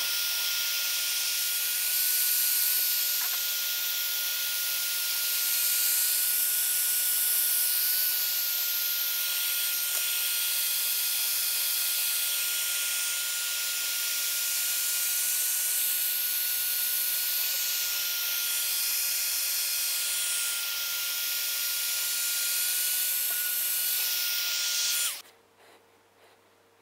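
Handheld electric heat gun running: a steady rush of hot air with a faint, even motor whine, shrinking a moulded heat-shrink T-boot onto a wiring harness transition point. It switches off near the end and the sound stops abruptly.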